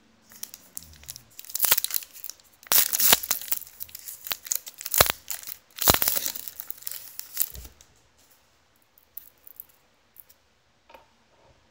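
A trading-card pack's wrapper being torn open and crinkled by hand, in a run of irregular rustling and crackling bursts that stop about eight seconds in.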